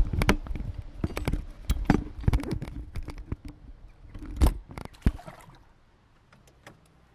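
Irregular knocks, clanks and scraping of an electric outboard motor being tilted down and settled into the water on the stern of a small metal boat, the loudest knock about four and a half seconds in; the handling stops after about five seconds.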